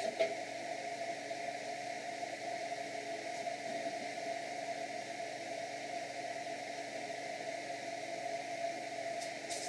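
Steady mechanical hum and hiss of a running motor, with a faint click about a quarter second in and a couple more near the end.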